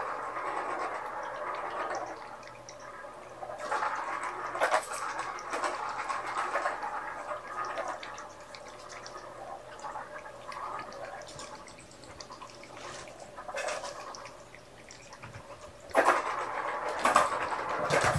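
Kittens clawing and scrambling on a carpet-covered ring scratcher: irregular bouts of scratching and rustling, louder near the end.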